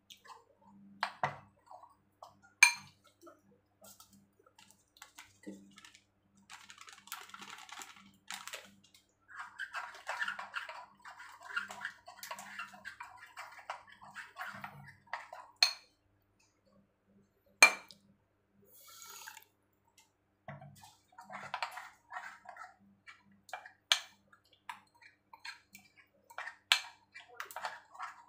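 A hand stirring a thin flour batter for tempe mendoan in a bowl: wet sloshing in long stretches, broken by a few sharp clicks against the bowl.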